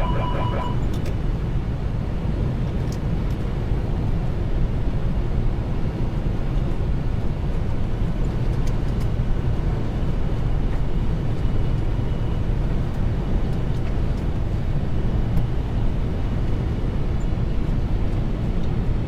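Steady cockpit noise of a Boeing 747 on final approach: an even rush of airflow and engine rumble, strongest in the low end. A brief electronic tone sounds right at the start.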